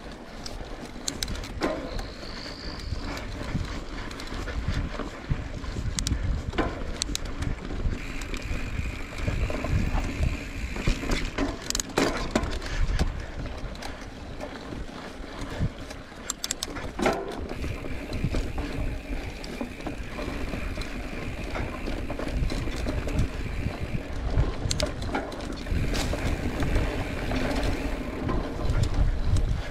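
Mountain bike ridden along a dirt trail: a steady low rumble of the ride, with sharp clicks and clatters from the bike going over bumps.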